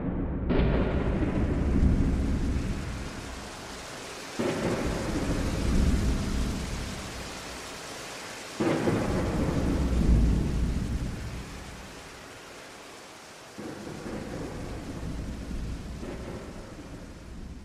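Thunderstorm sound effect between songs: steady rain with thunder breaking in suddenly about half a second, four and eight and a half seconds in, each clap rumbling away slowly, and a weaker rumble near the end as it fades out.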